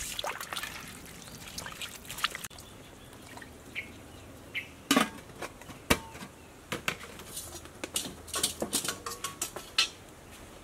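Metal spoon clinking and knocking against an aluminium soup pot during stirring, then the pot's metal lid being handled and set on. The knocks and clinks come irregularly, with a dense run of them in the last few seconds.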